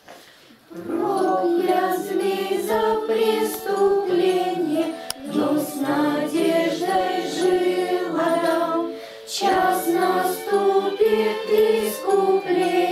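A group of girls singing a Russian Christmas hymn together, the voices coming back in about a second in after a short pause.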